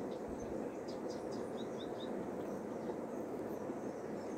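Steady rushing of a river in flood, with three short high bird chirps about a second and a half in.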